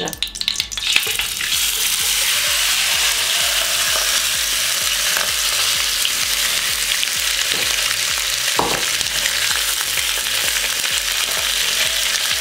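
A marinated, butterflied whole chicken frying in hot olive oil in a frying pan: a steady sizzle that settles in after a brief uneven crackle as the chicken goes into the oil.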